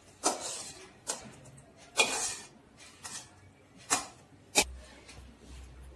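Metal spoon scraping and knocking against a steel wok and steel plate as noodles are scooped out: six sharp scrapes about a second apart, the one near two seconds in longer and ringing.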